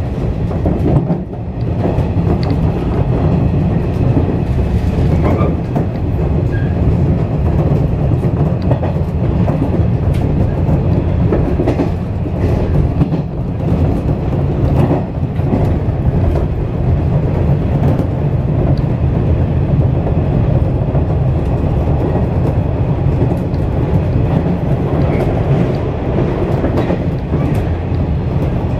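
415 series electric multiple unit running along the track, heard from the driving cab of the leading car: a steady rumble of wheels on rail with scattered clicks and knocks.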